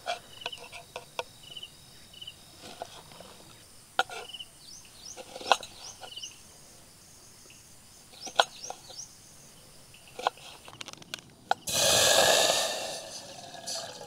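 Water hitting an overheated camp-stove pot, hissing loudly for about two seconds near the end; the pot had got too hot and sent up a cloud of smoke. Before it come scattered clicks and knocks of cooking gear and faint short high chirps.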